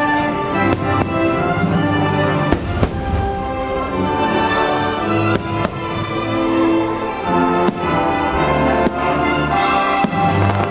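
Aerial fireworks bursting, with a sharp bang every second or two, over the show's soundtrack music playing steadily throughout.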